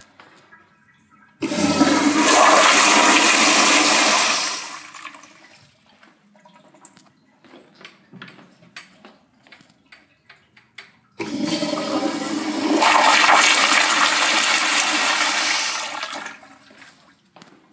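Two Crane toilets flushed one after the other. Each flush starts with a sudden loud rush of water and tapers off after a few seconds; the second runs longer.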